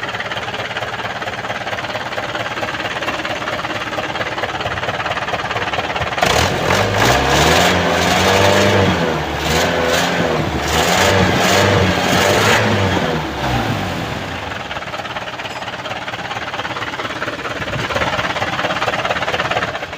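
Mitsubishi Canter's 4D32 four-cylinder diesel engine, with rebuilt injectors, idling, then revved up and down several times from about six seconds in before settling back to idle.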